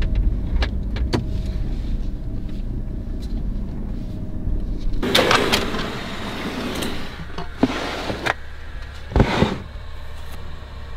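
Toyota 4Runner's engine idling with a steady low rumble, a couple of light clicks about a second in. From about five seconds in, rustling and clattering of gear being rummaged in the SUV's rear storage drawer, with a few sharp knocks before it quietens.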